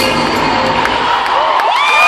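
Large arena crowd cheering and shrieking at a pop concert, over amplified music whose bass drops out about a second in. High shrieks rise near the end.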